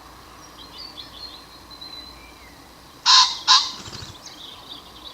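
Bird recording: small birds twittering faintly and high, then two loud, harsh calls in quick succession about three seconds in.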